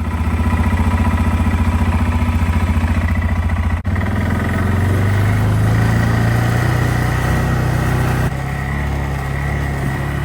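Vehicle engine running steadily at low revs as it drives, its pitch rising a little after about four seconds. The sound breaks off abruptly and resumes about four and eight seconds in.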